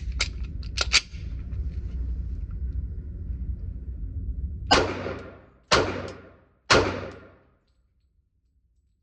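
Three gunshots about a second apart, each with a ringing tail that dies away. Before them come a few sharp clicks over a steady low hum.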